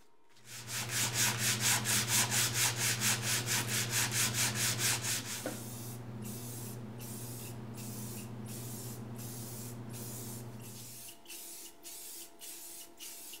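Sandpaper scraping over body filler on a metal cover plate, in quick strokes about three or four a second over a steady hum. About halfway through, the strokes give way to the hiss of spray paint in short passes, and the hum stops near the end.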